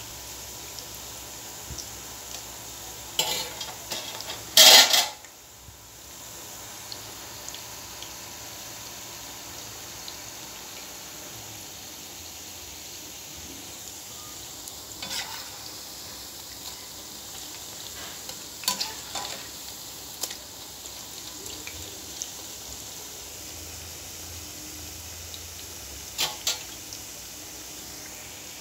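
Onion pakodi deep-frying in hot oil, a steady sizzle. A metal slotted spatula scrapes and clacks against the pan several times, loudest about five seconds in.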